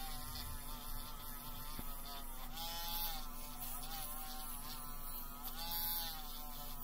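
Handheld rotary tool spinning a small wheel against a bare diecast metal car body: a high buzzing whine over a scratchy hiss, its pitch dipping and recovering a few times as the wheel is pressed onto the metal.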